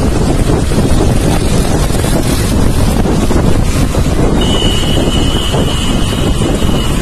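Wind buffeting the microphone on a moving Suzuki scooter, with the ride's engine and road noise underneath. About four and a half seconds in, a steady high tone begins and lasts about two and a half seconds.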